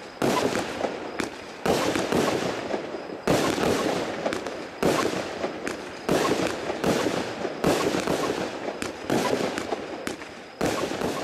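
Zena Kracherblitz firework battery firing shot after shot, eight in all, about a second and a half apart. Each shot starts with a sharp bang and trails off into dense crackling.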